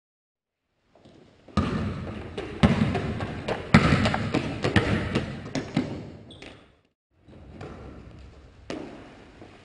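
Basketball dribbled hard on a hardwood gym floor in a large gym, a quick run of bounces with sneaker footsteps. The sound is absent for about the first second and drops out briefly about seven seconds in.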